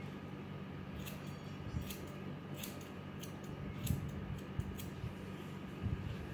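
Hair-cutting scissors snipping through wet hair: about nine short, crisp snips, a few close together, from about a second in to about five seconds in. A steady low hum runs underneath.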